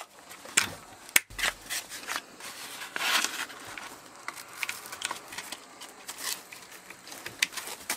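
A sheet of sandpaper being fitted to a Makita pad sander that is switched off: the paper rustles and crinkles, and the pad's clamp levers click and snap at irregular moments. The sharpest snaps come about half a second and a second in.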